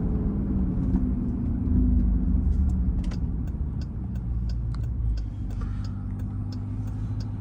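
Jeep Grand Cherokee Trackhawk's supercharged 6.2-litre V8 running on the move, heard from inside the cabin: a low rumble that swells for a moment about two seconds in, then settles to a steady drone. Faint light clicks sound throughout.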